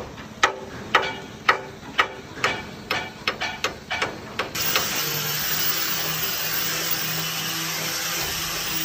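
Hammers knocking on a steel boat hull to chip off rust, irregular strikes about two or three a second. About halfway through they give way to the steady hiss of an angle grinder sanding the hull.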